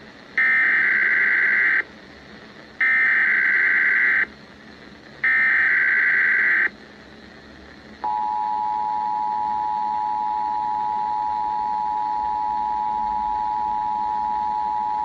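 Emergency Alert System test opening. Three short, identical screeching bursts of SAME header data, each about a second and a half long with a short gap between them. About eight seconds in, the steady two-tone EAS attention signal begins and holds.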